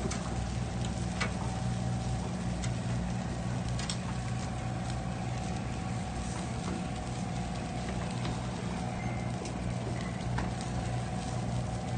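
Boat engine running steadily as a low hum, with occasional light metallic clicks of tongs against a barbecue grill grate.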